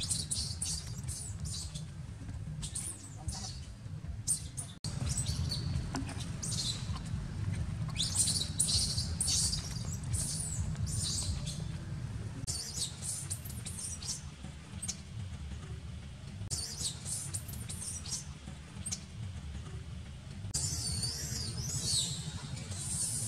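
Baby macaque squeaking over and over in short high-pitched cries, with a wavering, warbling run near the end, over a steady low rumble.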